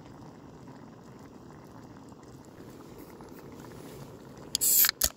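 Packet pasta boiling in an aluminium mess tin: a steady low bubbling. About four and a half seconds in comes a loud, short hiss, then a brief second burst.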